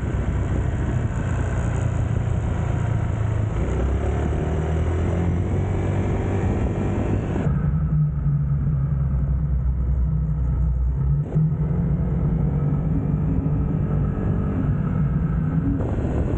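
Motor scooter being ridden, its engine running steadily under a rush of wind noise on the microphone. About halfway through the wind noise drops away sharply, leaving the engine note, which rises and falls.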